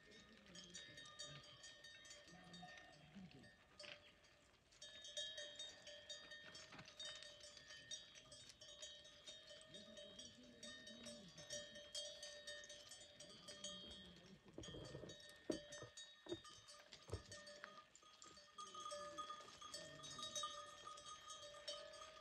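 Faint clinking of bells worn by a herd of goats and sheep as they walk over stony ground, with occasional bleats.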